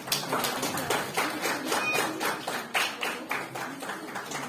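Scattered applause from a small audience: a few people clapping, about four or five claps a second.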